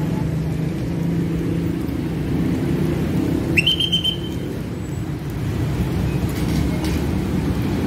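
Road traffic at a level crossing: car and motorbike engines running in a steady low rumble. About three and a half seconds in, a guard's whistle gives one short, shrill blast that rises sharply and then holds.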